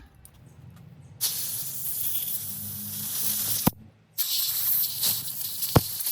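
Two long hissing sprays blasting dirt out of a dirty Zama carburetor from a chainsaw during cleaning, with a couple of sharp clicks.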